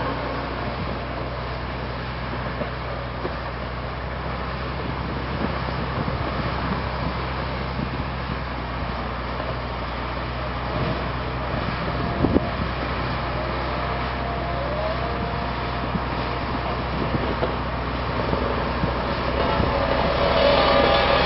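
Mattsson 261S motor grader's Scania diesel engine running steadily under load while the grader spreads gravel, with a mechanical rumble and gravel noise around it. A couple of sharp knocks come about midway, and it grows louder near the end as it comes closer.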